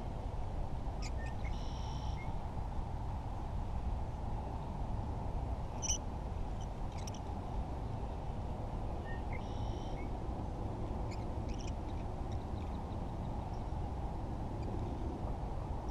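Steady wind noise on the microphone, with a bird calling twice, briefly, about a second and a half in and again about nine and a half seconds in, and a few short clicks in between.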